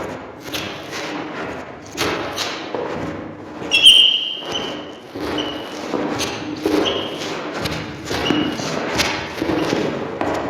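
Footsteps of hard shoes on a wooden floor, about two steps a second. About four seconds in comes a sharp high squeak, the loudest sound here, and a few shorter squeaks follow.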